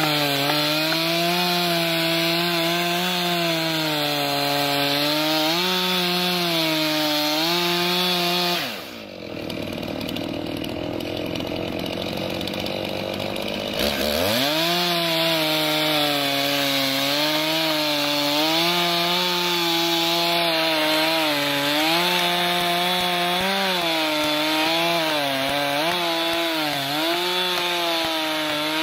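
Stihl chainsaw cutting at full throttle through a thick log, its pitch dipping and rising as the bar loads in the wood. About nine seconds in it drops off the throttle, then revs back up about five seconds later and keeps cutting.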